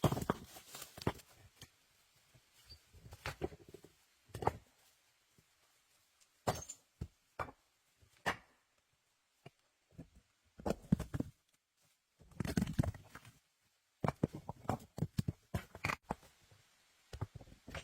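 Irregular knocks, thuds and rustling from hands working with branches and stones, in uneven clusters with short quiet gaps between them.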